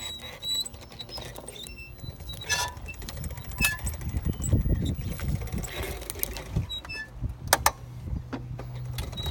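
Quad bike engine running as its tyre rolls over a pair of glasses, with sharp cracks as the glasses snap: a few single cracks, then two close together near the end.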